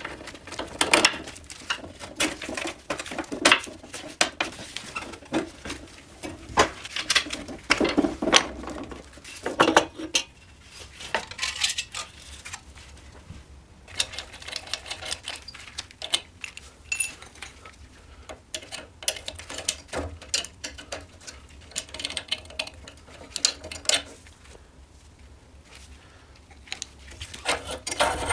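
Metal moped parts and tools clinking and knocking irregularly as the frame, rear shock absorber and front fork are taken apart by hand.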